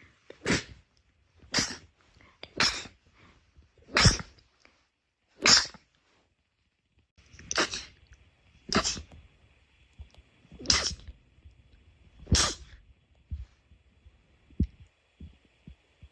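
A run of sneezes: nine short, sharp sneezes in a row, roughly one every one to two seconds, followed by a few faint small sounds near the end.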